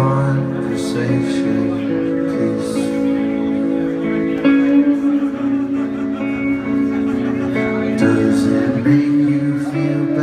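Rock band playing live, heard from within the audience: ringing electric guitar chords and cymbals, with a voice singing.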